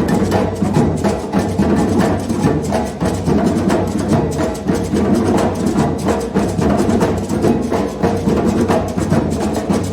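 Percussion ensemble drumming a fast, unbroken rhythm of many drums and sharp wooden-sounding strikes, at a steady loud level.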